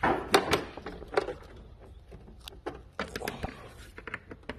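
Socket ratchet clicking in short bursts as strut bar bolts are worked loose, with scattered clinks and knocks of metal tools; the bursts come near the start and again about three seconds in.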